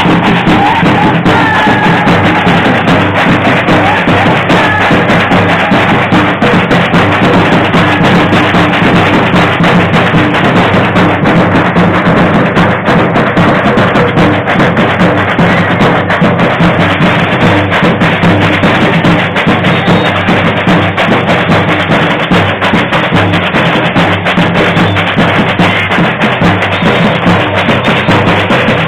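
Batucada samba percussion ensemble playing a loud, driving groove, with bass drums and many drums and hand percussion striking together.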